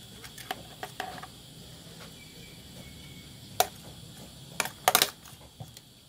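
Metal spoon clinking against a bowl while a herb mixture is scooped onto fish: a few light taps in the first second, a sharp clink about three and a half seconds in, and a quick run of clinks around five seconds.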